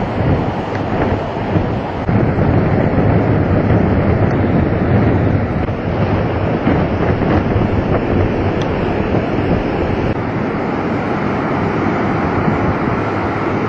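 Strong wind blowing hard across the microphone, a steady loud rushing noise with gusts, likely mixed with surf.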